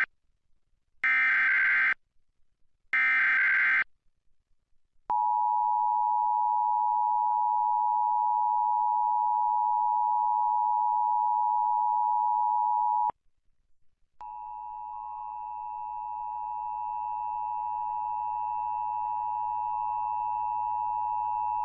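Emergency Alert System tones: two SAME header data bursts, about a second each, then the two-tone attention signal (853 and 960 Hz together) held for about eight seconds. After a second's break a second attention signal starts, with a low hum beneath it, and runs until the voice message begins.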